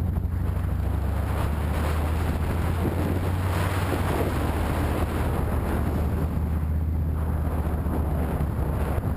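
Motorcycle engine running steadily while riding along, a constant low hum, with wind rushing over the microphone.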